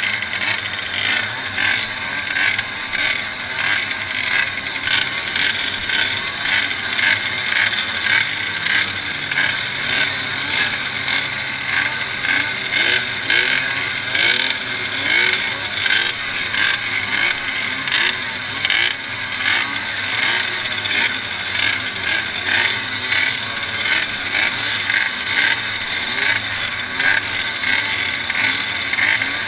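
A pack of small two-stroke Jawa and ČZ motorcycle engines running together while the bikes wait on the start line. The riders keep blipping the throttles, so the many overlapping engine notes rise and fall constantly.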